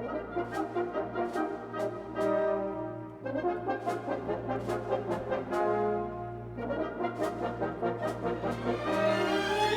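Music: a brass melody of held notes over a steady beat of about two ticks a second.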